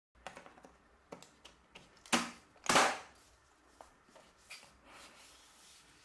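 The memory compartment door on the back of a 27-inch iMac being fitted and pressed shut by hand: a run of small clicks and taps, with two louder knocks a little after two seconds and near three seconds in.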